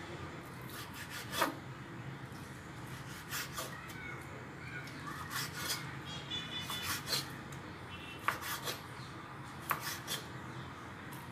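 Kitchen knife slicing raw boneless chicken breast into strips on a wooden cutting board: soft rubbing of the blade through the meat, with the edge knocking on the board now and then, the sharpest knock about a second and a half in.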